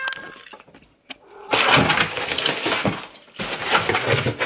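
Packing material crinkling and tearing as a well-wrapped parcel is unwrapped, in two long stretches of dense crackling that start about a second and a half in, with a brief break between them.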